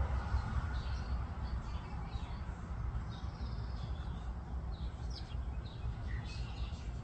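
Nine-day-old chicks peeping in scattered short, high chirps, over a steady low rumble.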